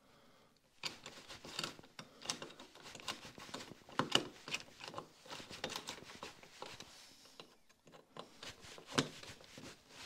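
Irregular small clicks, taps and rustles of electrical wiring being handled and reconnected at a light switch, with sharper clicks about four and nine seconds in and a short lull shortly before the end.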